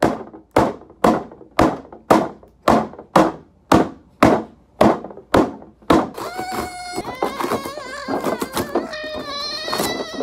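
Fists pounding on the top of a closed cardboard box, about a dozen hollow thuds at a steady two a second. About six seconds in the pounding stops and music with wavering held notes takes over, with a few scattered knocks under it.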